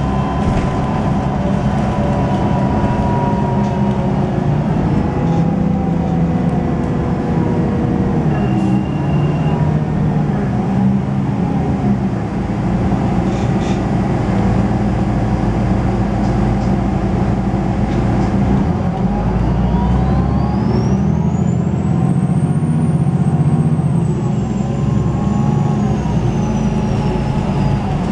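MAN D 2066 LUH 10.5-litre straight-six diesel of a MAN Lions City G articulated bus running under way, heard from inside the bus. Its turbocharger whistle rises steeply to a high pitch after about 19 seconds, holds briefly, then slowly falls away.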